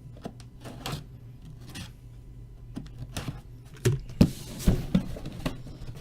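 Handling noise from a cardboard helmet box being worked open: a string of clicks and knocks, the loudest few coming about four to five and a half seconds in, over a steady low hum.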